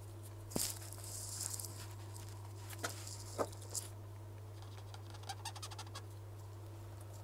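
A steady low electrical hum, with a short rustle and a scattering of light clicks and ticks: small objects being handled and set down on a workbench.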